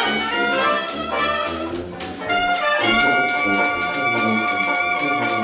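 Trad jazz band of trumpet, clarinet, sousaphone, banjo and washboard playing a New Orleans-style tune. About three seconds in the trumpet and clarinet settle on a long held closing note while the banjo and washboard keep the beat going.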